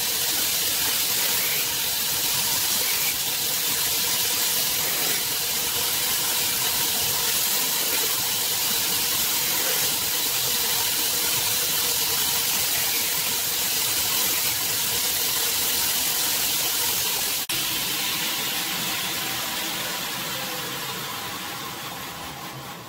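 Belt grinder running with a steel knife blade held freehand against the abrasive belt to grind a bevel, a steady loud hiss. A single click comes late, and near the end the grinder winds down and fades away.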